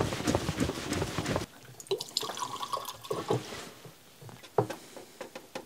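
Kerosene flushing fluid sloshing inside a RockShox Boxxer fork's lower leg as it is shaken to wash out dirt and metal shavings. It is a loud, choppy sloshing that cuts off suddenly after about a second and a half. Then comes a quieter trickle as the dirty fluid is poured out into a glass, with a few light knocks.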